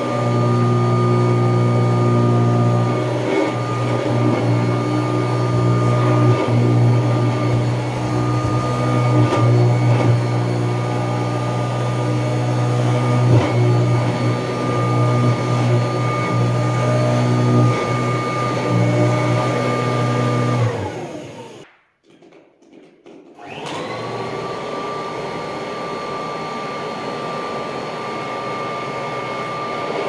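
1979 Kirby upright vacuum cleaner running while pushed over carpet: a steady high motor whine over a strong deep hum. About two-thirds of the way through the sound dies away for a couple of seconds, then the motor whine comes back quieter and without the deep hum.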